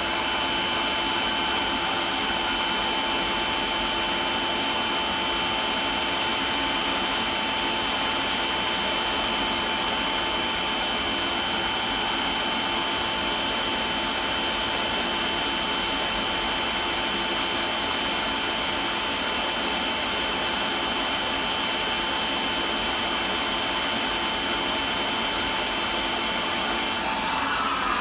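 HEPA vacuum running steadily with a whine, pulling air through a Milwaukee drill dust-extractor attachment hooked to its hose. The whine drops out shortly before the end while the vacuum's rush of air continues.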